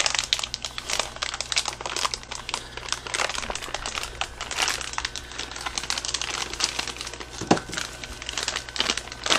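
Crinkling and rustling of the wrapping being pulled off new wheel bearings by hand, a dense run of irregular crackles.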